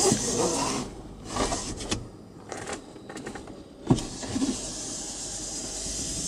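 Electric motor of a 2005 Mercedes-Benz E-Class rear-window sunshade running, stopping and starting again, with a sharp click about four seconds in.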